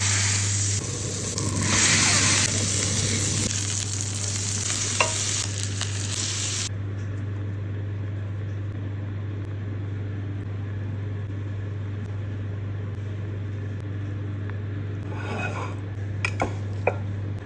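Smash burger patties sizzling on a hot griddle or pan, a steady frying hiss over a constant low hum, with a few sharp clicks.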